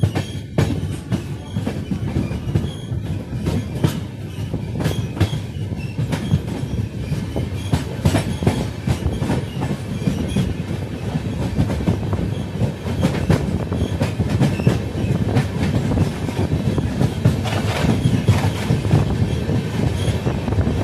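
Passenger train running from the station seen from aboard a coach, its wheels clattering over rail joints and points over a low rumble, the clicks coming faster and louder as the train gathers speed.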